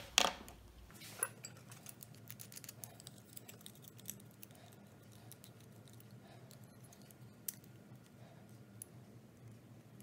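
Mini tubing cutter being turned around a 10 mm brass tube to cut it: faint, irregular metallic clicks and light scraping from the cutter and tube, after a brief louder knock at the start.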